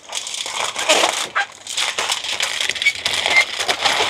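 Aluminium foil crinkling and crumpling as it is folded and pressed by hand around a roast, a continuous irregular rustle.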